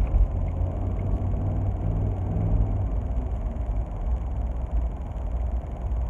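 Road noise heard from inside a moving car's cabin: a steady low rumble of engine and tyres.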